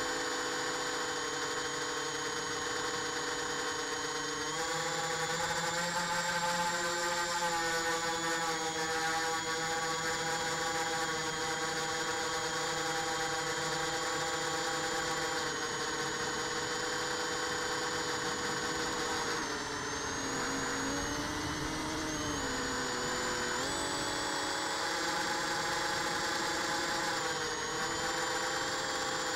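Whine of a small electric RC aircraft's motor and propeller, picked up by its onboard camera. The pitch steps up a few seconds in, sags and wobbles for a few seconds past the middle, then climbs again as the throttle changes.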